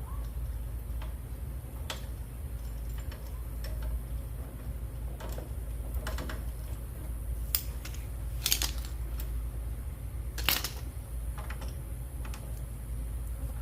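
Scattered light metallic clicks and clinks of a go-kart's roller drive chain and tools being handled as the new chain is fitted, with a few sharper clicks in the second half, over a steady low hum.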